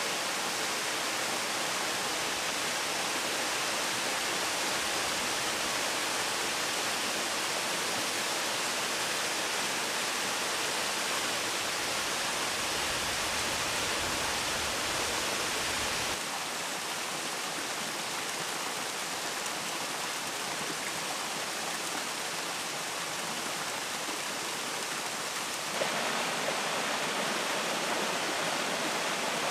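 Steady rush of falling and flowing water from a small hot-spring waterfall and stream. The tone of the rush shifts abruptly about halfway through and again near the end.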